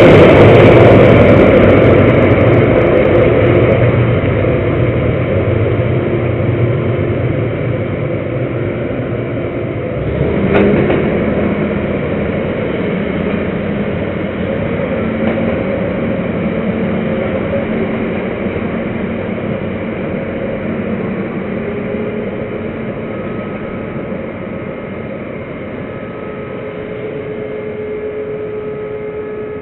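Combine harvester's engine and threshing machinery running with a steady hum, growing steadily fainter. There is a single short knock about ten and a half seconds in.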